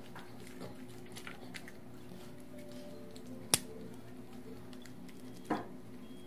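A small dog eating dried pollock pieces from a ceramic bowl: soft chewing and small clicks, with a sharp click against the bowl about three and a half seconds in and another about five and a half seconds in, over a steady low hum.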